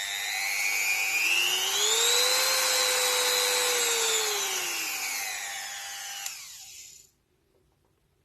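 Titan rotary multi-tool running with no load: a high motor whine that rises in pitch as the speed is turned up, holds, then falls as it is turned back down. It gives a click just after six seconds in as it is switched off, and the motor winds down to a stop.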